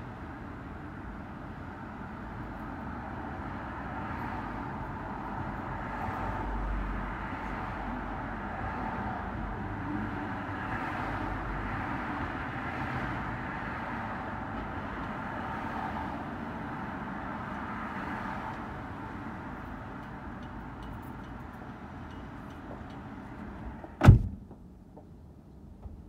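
Street traffic noise that swells for a stretch as vehicles go by and then eases off. About two seconds before the end there is one sharp, loud thump.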